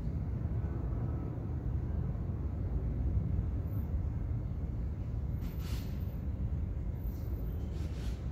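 Steady low outdoor background rumble with no tool sounds, and a brief faint hiss a little past halfway through.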